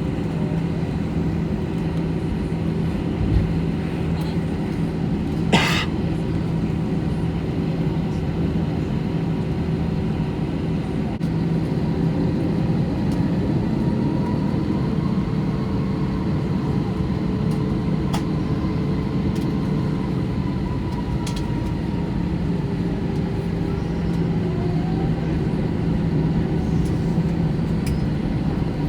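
Steady cabin noise inside an Airbus A321 with its CFM56 engines running at low power, a constant low hum. There is a click a few seconds in, a short sharp rattle about two seconds later, and a faint whine that rises and falls in the middle.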